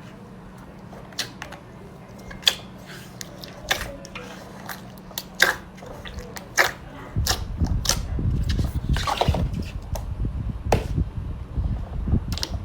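Slime being handled and squished, giving scattered sharp wet pops and clicks; about seven seconds in the handling turns denser, with rapid pops over low squelching thumps.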